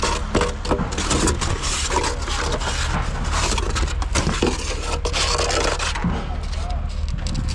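Hand work on building materials: continuous scraping and rubbing broken by many short knocks, over a steady low drone.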